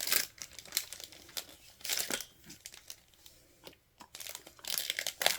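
Foil Yu-Gi-Oh! booster-pack wrappers crinkling in the hands in several short bursts, the longest near the end.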